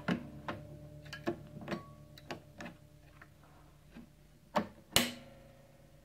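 Irregular clicks and knocks of fingers working the Fishman Presys preamp panel in the side of an acoustic-electric guitar, with two louder knocks about a second from the end. The guitar's strings ring faintly behind them.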